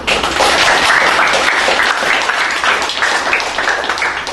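A small audience applauding: many hands clapping together, starting all at once and thinning out near the end.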